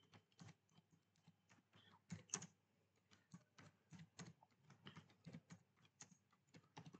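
Faint keystrokes on a computer keyboard, typing text at an uneven pace, with a couple of louder key clicks about two seconds in.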